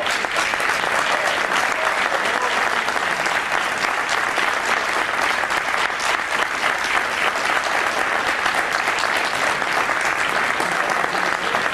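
Audience applauding steadily: many hands clapping in a dense, continuous patter.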